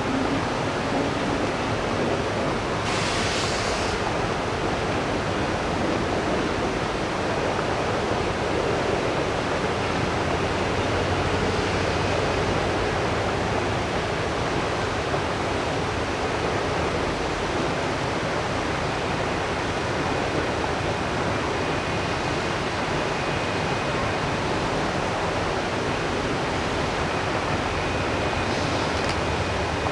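Rocky river rushing over boulders and small rapids: a steady, unbroken rush of water.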